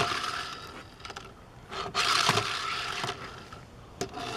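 Small die-cast Hot Wheels toy truck rolling and scraping across a hard surface, in two stretches: one at the start and a louder one about two seconds in.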